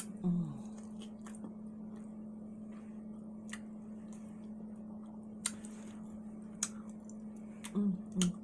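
Close-miked eating sounds: a person chewing, with scattered wet mouth clicks and smacks. Short vocal hums at the start and near the end, over a steady low hum.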